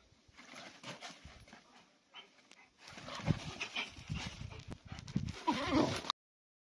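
Dogs scuffling and vocalising as one dog corrects an over-excited young male, louder from about halfway, with a short wavering cry near the end before the sound cuts off abruptly.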